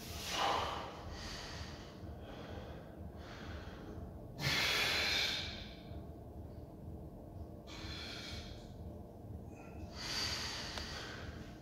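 A man breathing hard while tensing his muscles in bodybuilding poses: about seven forceful breaths, the loudest a long one about four and a half seconds in.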